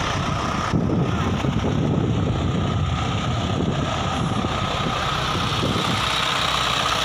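Isuzu 4HF1 four-cylinder diesel engine idling steadily on a test run after a repair for coolant mixing into the oil: it has a new oil cooler and fresh oil, and it is being run to check that water no longer gets into the oil.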